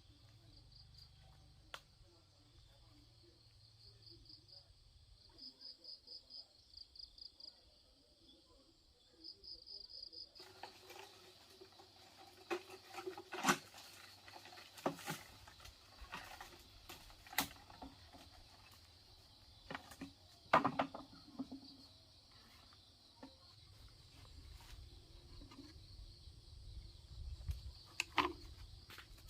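Insects chirping in short pulsed trills over a steady high buzz. About ten seconds in, a run of sharp knocks and clicks begins and keeps on irregularly.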